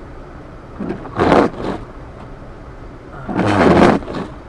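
Steady drone of a car heard from inside the cabin while driving slowly. Two short, louder sounds come about one second in and again about three and a half seconds in.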